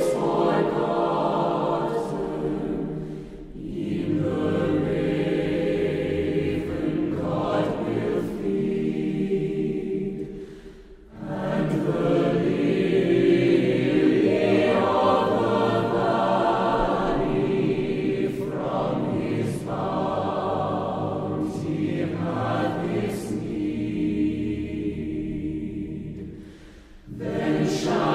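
Background music: a choir singing long held phrases, with brief breaks between phrases three times.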